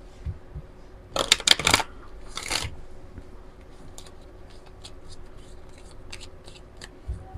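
A deck of oracle cards being shuffled by hand: a loud flurry of card slaps a little after a second in, a shorter one at about two and a half seconds, then soft scattered card clicks.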